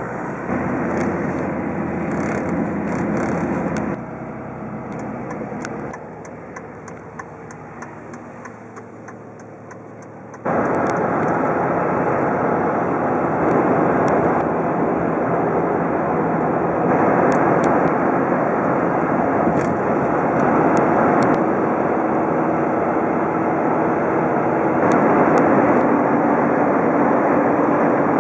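Engine and tyre noise heard inside the cab of a Dodge Ram 3500 pickup on the move, first on a dirt road with light ticks and rattles, then a louder steady rush at highway speed. The level steps down twice early on and jumps up sharply about ten seconds in.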